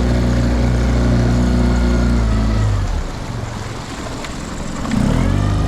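Outboard motor of a small inflatable boat running steadily, then easing off about two to three seconds in as the boat slows near a surface shoal of fish; the motor briefly picks up again near the end.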